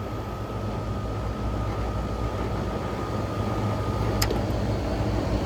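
Carrier air-conditioning unit running with its second compressor stage (Y2) energised, a steady low mechanical hum that grows slightly louder. A thin steady high tone runs alongside and cuts off with a sharp click about four seconds in.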